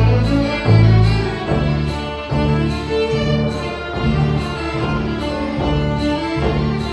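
Folk fiddle ensemble playing a lively tune: several violins together over low bass notes, with a steady beat.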